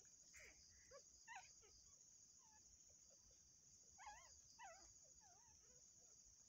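Faint dog whimpering: short, high, wavering squeaks, several in a row about a second in and again around four to five seconds in, over steady cricket chirring.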